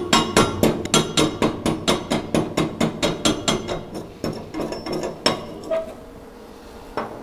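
Welding chipping hammer striking a steel fillet weld in a rapid, even run of about five blows a second, knocking the slag off the crater at the weld's stop point. The blows stop about five seconds in, with a single light knock near the end.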